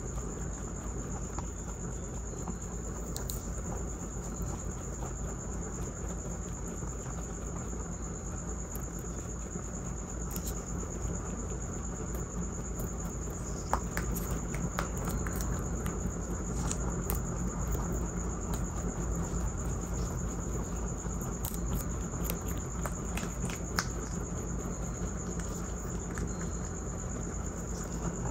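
Rabbits chewing raw green beans close to the microphone: fast, steady crunching and nibbling clicks. From about halfway through, as two rabbits eat at once, the crunching gets louder and denser, with sharper snaps.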